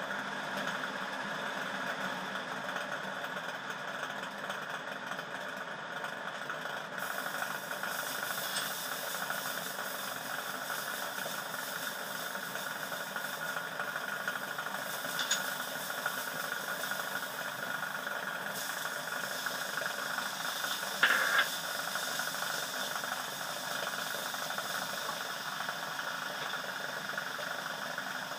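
Minced garlic sizzling in hot oil in a stainless steel wok, over a steady mechanical hum. The high hiss of the sizzle comes in about seven seconds in. A spatula clicks against the pan now and then, and there is one louder clatter about twenty seconds in.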